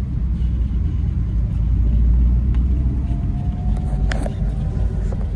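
Steady road and engine rumble inside a moving car's cabin, with a large truck passing close alongside near the end. About four seconds in there is a short clatter.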